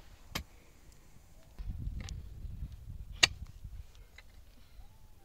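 Pickaxe striking hard, stony soil: three sharp blows, the last about three seconds in the loudest, with a low rumbling noise in between.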